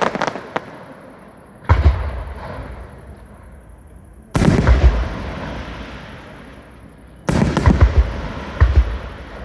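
Fireworks display: aerial shells bursting in three volleys about three seconds apart. Each volley is a sudden cluster of loud booms followed by a rumbling echo that slowly fades.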